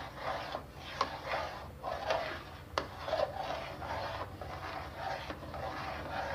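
Metal spoon stirring thick spinach purée into oily masala in a metal pot, scraping around it in repeated strokes about twice a second, with a couple of sharp clicks of the spoon against the pot.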